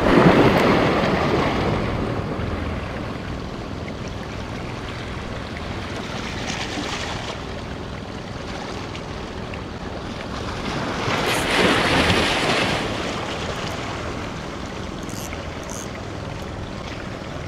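Sea waves breaking and washing against rocks, with two larger surges: one at the start and one about twelve seconds in. Wind buffets the microphone.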